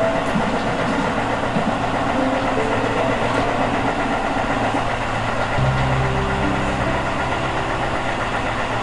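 Tobu Urban Park Line electric train running on rails: a steady rumble of wheels on track. About two-thirds of the way through, a low electric hum from the traction motors comes in, with faint tones stepping down in pitch as the train slows for a station.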